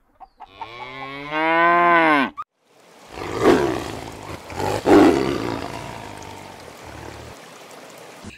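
A cow moos once, a long call that rises slightly and then falls in pitch. Then a white tiger gives two rough growls about a second and a half apart, the second trailing off slowly.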